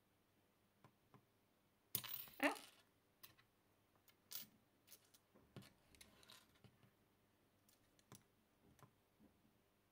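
Metal tweezers and a metal coin-cell battery holder clicking and tapping against a circuit board, with a louder metallic clatter about two seconds in, then a string of small scattered ticks.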